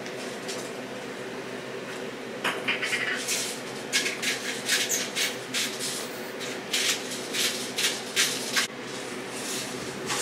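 Kitchen clatter: a run of short knocks and clicks over a steady hum, starting a couple of seconds in and going on irregularly.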